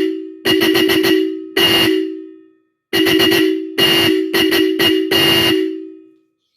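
Zappa electromagnetic disc-type car horn sounded in a string of short honks and quick taps, about nine in all, with a pause of about a second partway through. It gives one steady, loud tone that trails off briefly after each release.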